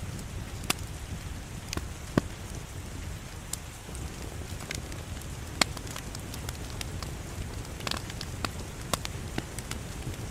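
Wood fire in a fireplace crackling: irregular sharp pops and snaps, a few louder than the rest, over a steady low rumble of the flames.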